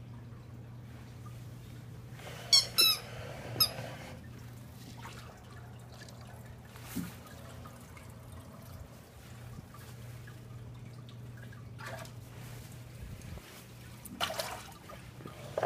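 Aquarium running with a steady low hum and a faint trickle of water. A few short, sharp squeaky knocks come about two and a half seconds in, and again near the end.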